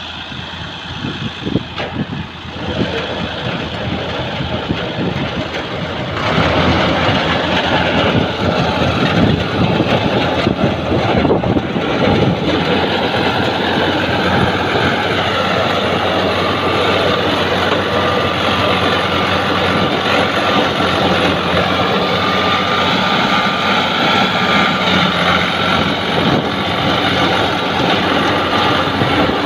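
Ford 4560 tractor engine running steadily, getting louder about six seconds in.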